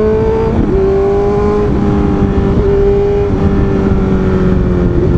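Honda CB650F's 649 cc inline-four with an aftermarket SC full exhaust, running under way at fairly steady revs. The engine note eases and dips briefly several times with small throttle changes, over wind and road noise.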